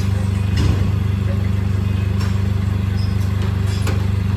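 A motor engine running steadily at idle, a low hum with a fast even pulse, with a couple of brief knocks, one early and one near the end.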